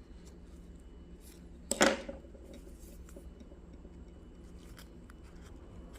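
Dry pandanus leaf strips handled during weaving: faint rustling and small ticks as a strand is lifted and tucked, with one louder, short rustle about two seconds in.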